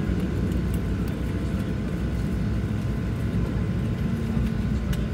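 Cabin noise inside a Boeing 737-700 as it taxis in: a steady low rumble from the CFM56 engines at idle, with a faint steady whine above it.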